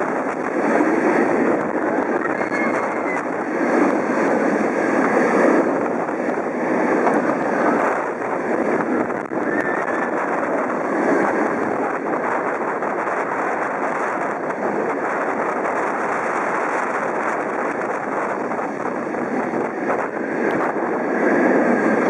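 Bolliger & Mabillard inverted roller coaster train running at speed through its track, heard as a steady rush of wind and rolling wheel noise on a train-mounted microphone.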